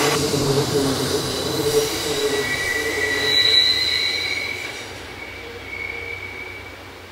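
Loaded molasses wagons of a freight train rolling past, with a rumble that fades over the first few seconds. From about two and a half seconds in, the wheels squeal with a high, steady tone, and the train grows quieter near the end.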